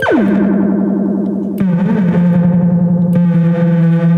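Homemade dub siren and delay synth playing through a small portable speaker: the tone sweeps sharply down in pitch, then holds a steady, buzzy low drone while fading echoes of the falling sweep repeat behind it, dropping a step lower about a second and a half in. The echo is set with heavy feedback.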